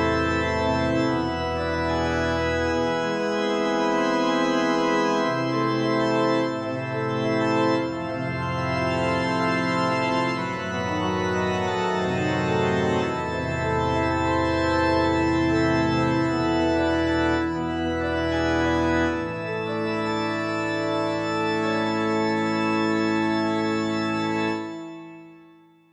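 Background organ music: slow, sustained classical chords over held bass notes, fading out near the end.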